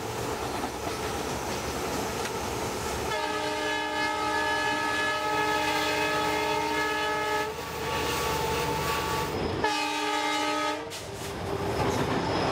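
Diesel locomotive under way, its running noise steady, then its multi-tone horn sounds about three seconds in: one long blast followed by two shorter ones.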